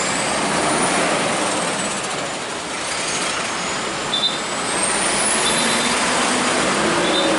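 Road traffic of trucks and cars passing close by: a steady rush of engine and tyre noise that eases a little and then builds again.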